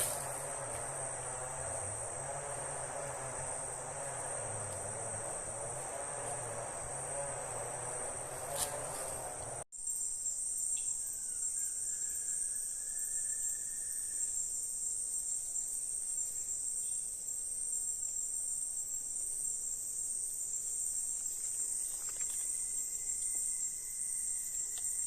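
Steady high-pitched chorus of insects, with a short break about ten seconds in, after which it comes back stronger.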